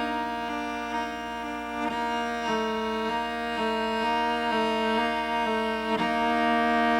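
Cello playing a double-stop finger exercise: two bowed notes sound together, with the fingered notes changing about twice a second in an even pattern. The lower fingers are held down while the higher fingers lift and drop, building left-hand strength and independence.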